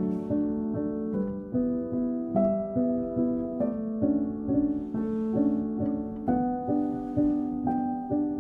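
Background music: a gentle melody of plucked, harp- or piano-like notes in a steady rhythm.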